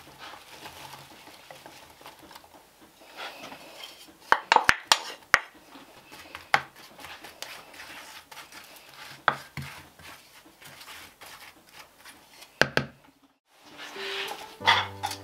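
Apple slices tipped into a metal springform tin and spread with a wooden spoon: soft rustling with a quick run of sharp knocks against the tin, then single knocks every few seconds. Near the end a metal clatter, and music comes in.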